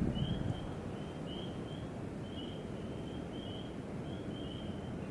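Outdoor ambience: short high-pitched chirps repeating steadily, about two a second, from a calling animal, over a low rumble of background noise.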